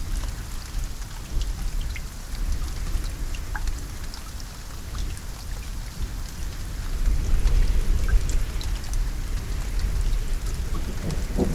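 Steady rain falling, with individual drops ticking on a surface. A low rumble of distant thunder swells in the second half.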